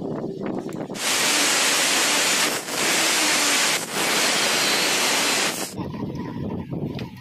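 Angle grinder with an abrasive cut-off disc cutting through steel: a loud, even grinding hiss that starts suddenly about a second in, eases off briefly twice, and stops a little before the end.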